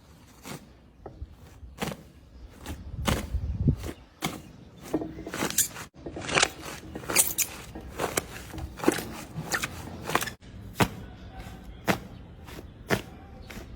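Slime being mixed and squished, making irregular sharp clicks and pops, several close together at times.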